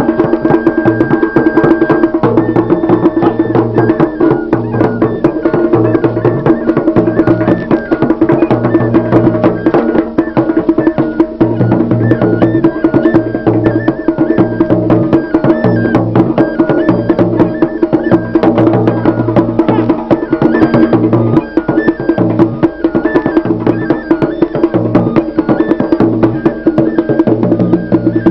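Traditional dance music played loudly, led by dense, fast drumming and percussion with a sharp wood-block-like click and a melody line moving in steps above it.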